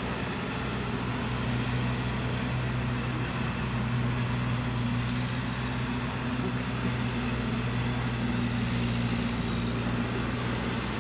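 A motor running steadily: a low, unchanging hum with an even rushing noise over it.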